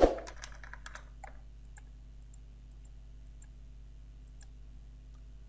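Computer mouse clicks: one sharp click at the start, then faint, scattered clicks over a steady low hum.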